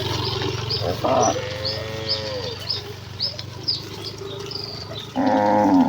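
Cattle mooing: one drawn-out call that rises and falls about a second in, and a louder call near the end, over repeated short bird chirps and a steady low hum.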